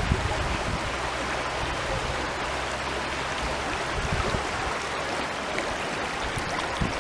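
Water from a mountain spring stream running steadily, an even rushing sound.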